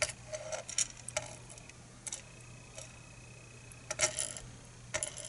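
Light clicks and taps of small metal lock parts, the pins and core of a disassembled lock cylinder, being handled and set down. There are a handful of scattered ticks, the loudest near the end, over a steady low hum.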